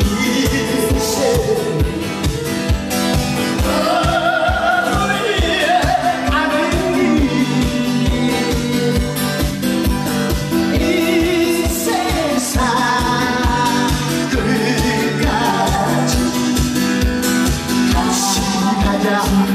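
Live amplified music: a voice singing a wavering, held melody over a fast, steady drum beat of about two and a half beats a second.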